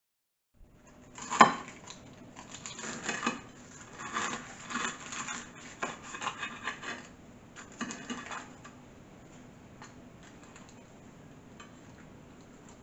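A table knife cutting into a whole battered, fried porgy on a plate: one sharp knock about a second in, then several seconds of uneven scraping, sawing strokes through the crisp crust against the plate, dying down to a few light taps.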